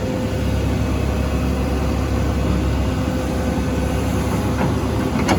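John Deere 790D excavator's diesel engine running steadily while digging, with a constant high hum over the low engine rumble.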